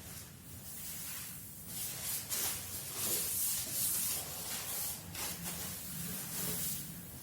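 Compressed-air paint spray gun hissing in repeated short passes, each about half a second to a second, strongest a few seconds in, over a faint low hum.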